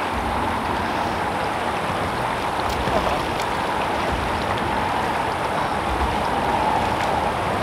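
Steady rushing of a shallow, fast river flowing over rocks.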